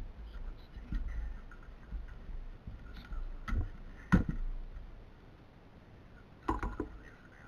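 Scattered knocks and clicks of electronic parts being handled while a DLP TV is taken apart, the loudest a little after four seconds, with a short cluster of clicks about two seconds before the end.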